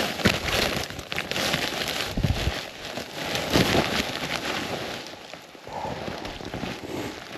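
Irregular crunching and crackling of deep snow with rustling, as someone moves about on snowshoes, with a few heavier thumps.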